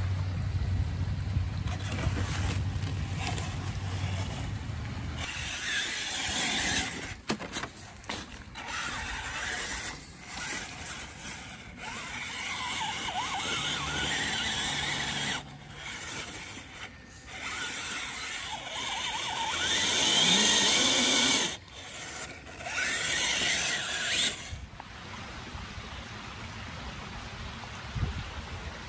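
Axial Wraith Spawn RC rock crawler's electric motor and geared drivetrain whining in stop-start bursts as it crawls over rock and dirt.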